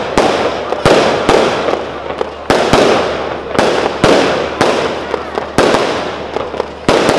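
Pirotecnia Trani aerial firework shells bursting overhead in a rapid, uneven volley: about a dozen sharp bangs, each trailing off in a long echo.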